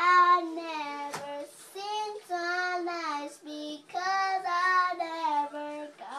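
A young girl singing a made-up song unaccompanied, in three or so phrases of long held notes that slide between pitches, with short breaths between phrases.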